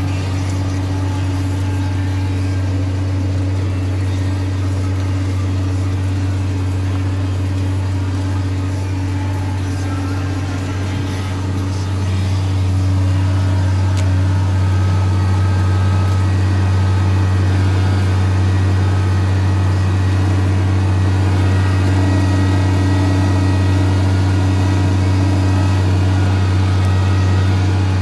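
John Deere tractor's diesel engine running steadily under load while pulling a reversible plough, heard from the cab. It gets louder about twelve seconds in.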